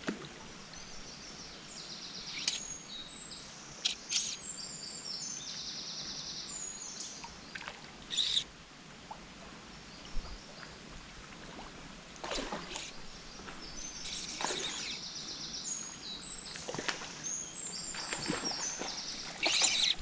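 Songbirds singing: high, quickly repeated notes in short stepped phrases, in two long spells. A few brief rustling knocks cut through, the loudest near the end.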